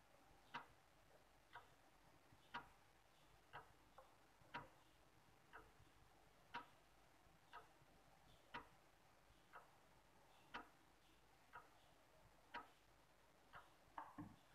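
A clock ticking about once a second, the ticks alternating louder and softer, in an otherwise near-silent room; a few light knocks just before the end.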